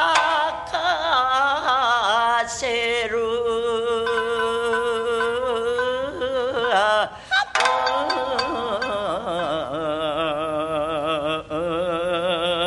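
Rōkyoku (naniwa-bushi) singing: a woman's voice draws out long, wavering sung notes with shamisen plucks accompanying, and holds one long steady note in the middle.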